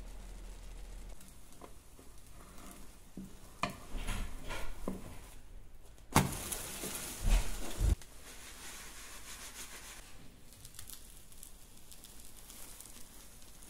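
Cooking in a nonstick frying pan: a faint sizzle with a run of light clicks about four seconds in, then a sudden louder stretch of sizzling noise with two heavy knocks of the pan about six to eight seconds in, settling back to a faint crackling hiss.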